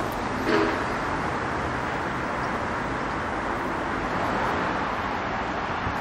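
Steady distant road-traffic noise, with a short pitched sound about half a second in.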